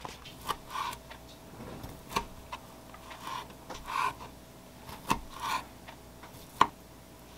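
Kitchen knife clicking and tapping on a wooden cutting board while small sausages are slit at one end, a handful of sharp clicks spaced about a second or more apart, with a faint steady hum underneath.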